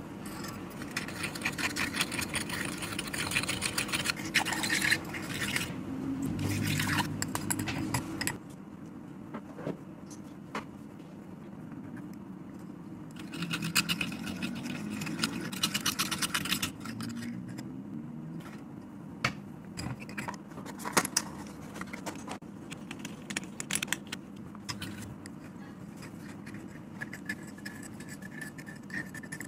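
Tiny metal whisk beating a mixture in a miniature stainless-steel bowl: two spells of fast clinking and scraping, about a second in and again around fourteen seconds, with scattered taps between. A steady low hum runs underneath.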